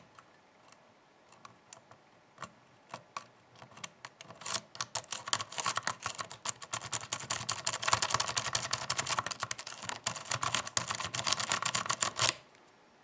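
Lock pick clicking and scraping inside a pin-tumbler challenge lock: a few light clicks, then about four seconds in a fast, dense run of clicks that stops abruptly near the end.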